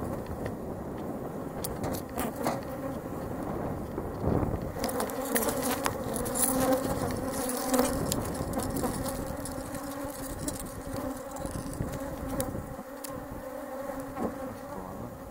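Honeybees from an opened hive buzzing in a steady hum close around the beekeeper, the colony stirred up as its frames are handled. Scattered sharp clicks of the wooden frames being moved, most of them in the middle of the stretch.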